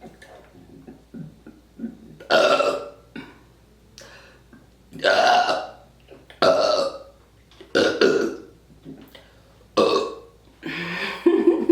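A person burping deliberately on command, a series of about six loud burps each under a second long, coming every second or two, with a few smaller ones in between.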